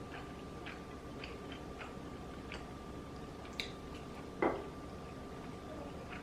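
Close-up eating sounds: a person chewing with soft, irregular wet mouth clicks, and a louder smacking sound about four and a half seconds in.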